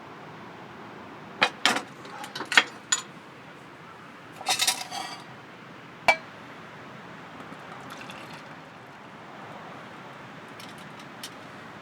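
A series of sharp clinks and clatters of small hard objects being handled, densest about four and a half seconds in, with a single sharp click about six seconds in, over a steady rushing background.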